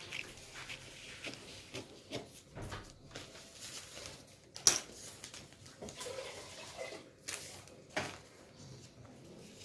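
Scissors snipping through newspaper and the paper rustling as it is cut and handled, with a sharp tap about four and a half seconds in.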